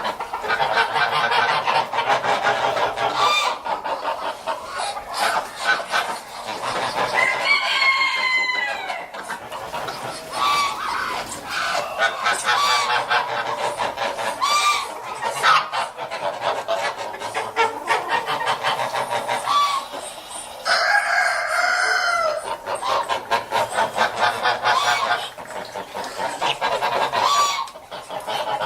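A flock of geese honking and chattering, with many overlapping short calls and a few longer, louder calls.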